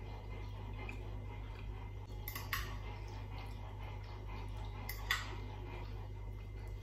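Metal fork and spoon clinking against a ceramic dish while noodles are lifted, two sharp clinks, the second louder, over a steady low hum.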